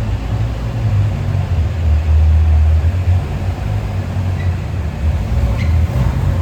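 Ferrari 812 Superfast's 6.5-litre naturally aspirated V12 running at low revs with a steady deep rumble.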